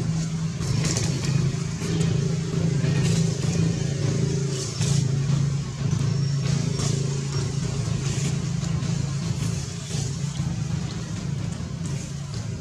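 A steady low motor hum, engine-like, with scattered short crackles over it.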